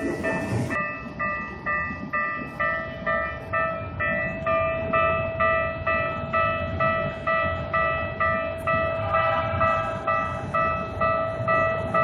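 Japanese railway level-crossing warning alarm ringing, an electronic bell dinging in a steady, even rhythm. The rush of a passing train cuts off about a second in, and a second, differently pitched crossing bell joins in about three-quarters of the way through.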